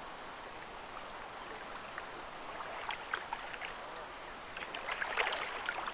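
A steady wash of shallow river water, then splashing and sloshing that grows louder over the last second or so.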